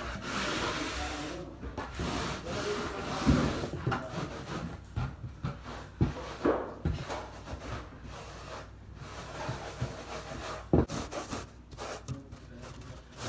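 Hand tool scraping and rubbing over a mortar floor bed as it is spread and levelled, in uneven strokes, with a few sharp knocks of the tool.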